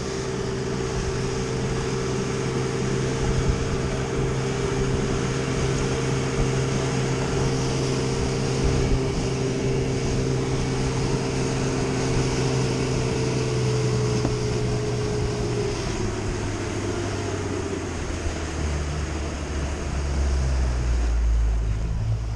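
Boat engine running steadily under way, with wind and water rushing past. About two-thirds of the way through its pitch drops a little as it is throttled back.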